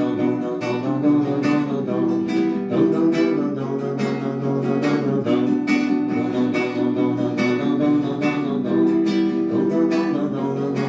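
Instrumental music led by strummed acoustic guitar with a steady rhythm, in a break between sung lines of a pop song.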